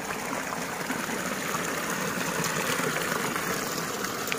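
Shallow water running steadily over stones in a small irrigation channel.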